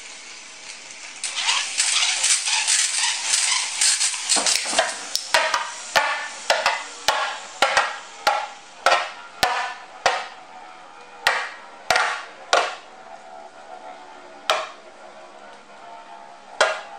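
Two Infinity Nado 5 spinning tops battling in a plastic stadium, their metal battle rings striking each other. It starts as a dense, fast rattle of clashes and scraping, then settles into sharp ringing clacks about every half second that space out toward the end.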